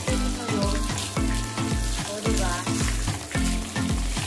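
Background music with a steady beat of about two thumps a second and a sustained bass line, with an even hiss over it.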